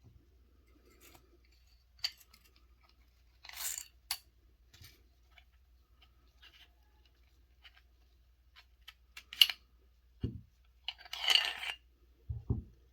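Browning 1911-22 A1 pistol being field-stripped by hand: scattered metallic clicks and short scrapes as the slide, barrel bushing and recoil spring assembly are worked off the frame, with a longer scrape about eleven seconds in and a few dull knocks near the end.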